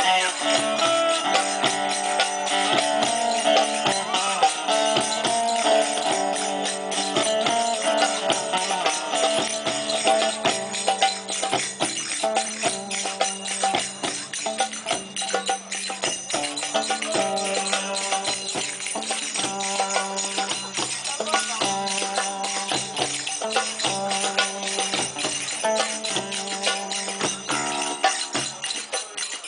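Live band music with a steady beat, a repeating low melodic line and jingling hand percussion.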